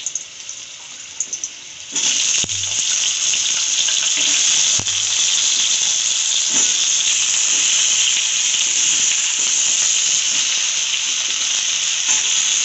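Cubed potatoes sizzling in hot oil in a kadhai as pieces are dropped in by hand. The sizzle jumps much louder about two seconds in and then holds steady, with a couple of light clicks.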